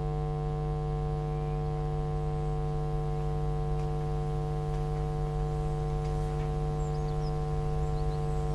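A steady drone of several held tones, an ambient music pad on the film's score, unchanging throughout, with a few faint high chirps near the end.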